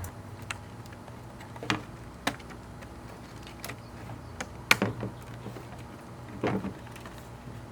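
Hard plastic clicks and knocks, about half a dozen spread out, the loudest just under five seconds in, as a side-mirror cover with a built-in sequential turn signal is handled and snapped into place on the mirror housing.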